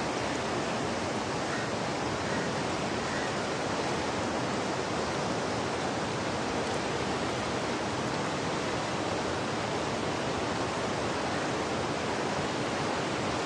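Steady rushing of river water over shoreline rocks, an even hiss with no breaks.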